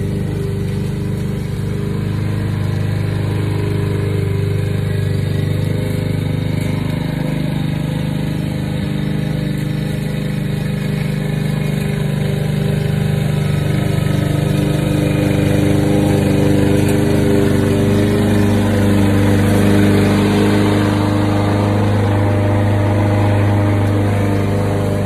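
Craftsman gas push lawn mower's engine running steadily as it cuts grass, a bit louder in the second half as it comes closer.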